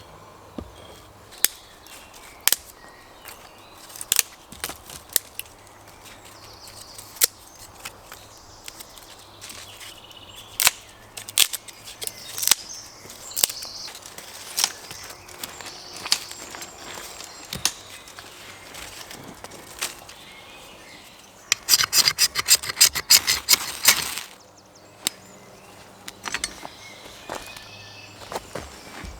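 Scattered sharp knocks and clicks of hand tools working wood, with a dense run of quick strikes about 22 seconds in that lasts about two seconds.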